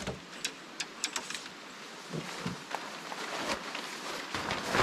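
A few light clicks and knocks, then the large sheet of awning fabric rustling and crinkling as it is pulled out and shaken open, loudest near the end.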